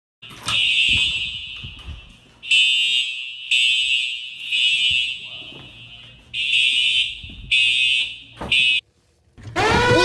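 Simplex TrueAlert non-ES fire alarm horn sounding its evacuation signal in groups of three blasts about a second apart, each blast echoing away. Near the end it cuts off and background music begins.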